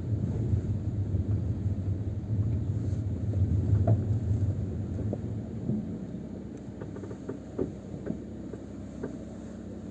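Clicks and knocks from the left front wheel area of a Changan CS35 Plus as the steering wheel is turned with the car held stationary on the brake. These are the extraneous noises the owner is complaining about. A low rumble runs underneath and eases off about halfway through.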